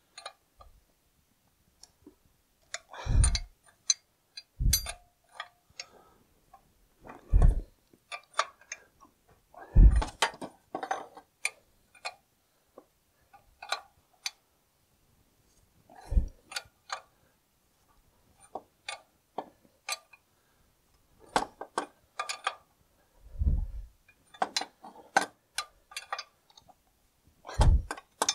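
Spanner clicking and clinking on a nut as it is wound down a threaded rod to compress the springs of a David Brown 990 clutch pressure plate. The clicks come in short, irregular bursts, with a dull knock every few seconds.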